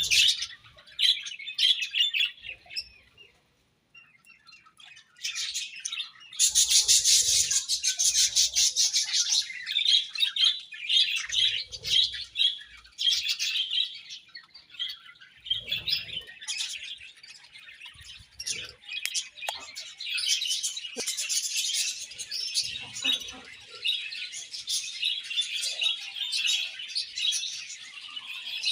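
Many budgerigars in a colony chirping at once in a dense, continuous chatter, dropping off briefly about three seconds in before picking up louder again.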